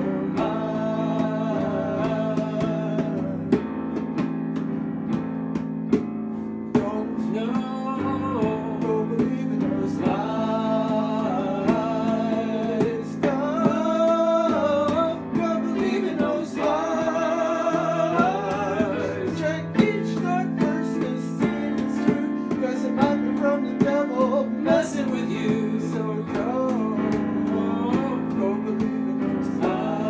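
Acoustic guitar strummed along with a digital piano, and a voice singing long, wavering notes over them.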